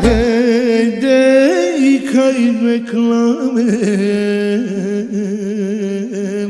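A male singer holds long, ornamented notes with heavy vibrato over sustained keyboard chords. A drum beat stops just after the start, leaving voice and keyboard.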